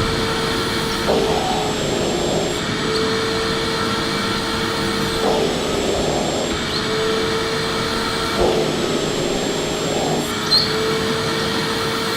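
Electric vacuum cleaner running steadily: a constant motor whine over a noisy rush of air, its tone shifting slightly every couple of seconds.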